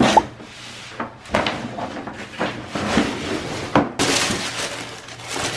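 Cardboard boxes being handled on a wooden floor: a string of sharp knocks and bumps as the box and lid are moved, then a steady rustling of packaging from about four seconds in.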